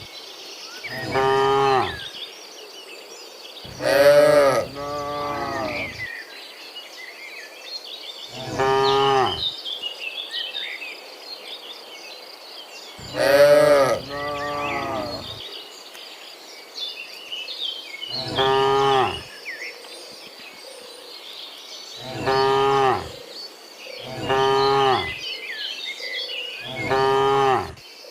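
Several cows mooing in turn, about nine long moos at different pitches. Faint high chirping sounds between the calls.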